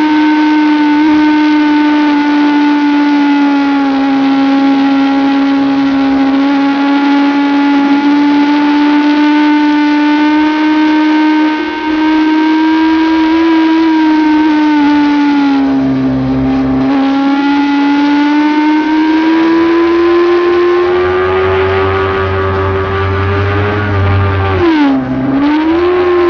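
Motorcycle engine heard from on board at speed, a strong steady note at high revs whose pitch drifts gently. The revs sag for a moment about sixteen seconds in, then drop sharply and climb back near the end as the throttle comes off and goes back on.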